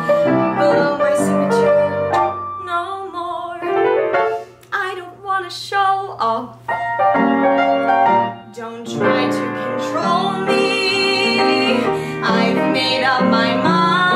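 Woman singing a musical-theatre song over upright piano accompaniment, ending on a long held note with vibrato.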